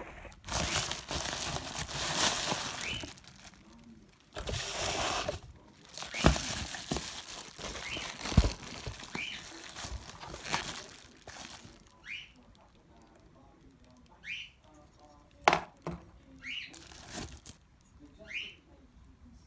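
Plastic bubble-wrap packing rustled and crinkled by hand in long stretches during the first twelve seconds, with a few sharp knocks later. Through it a cockatiel gives short rising chirps, about half a dozen times.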